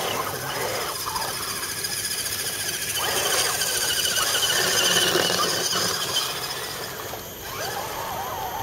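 High-pitched whine of a scale RC crawler truck's electric motor and gearbox as it drives through a muddy puddle, swelling as the truck passes close by about halfway through, then fading, with the pitch sliding up and down as the throttle changes.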